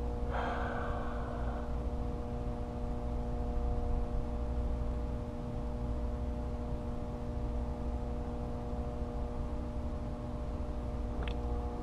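Steady machine hum made of several fixed tones over a low rumble. A short rustling noise comes about half a second in, and a couple of sharp clicks come near the end.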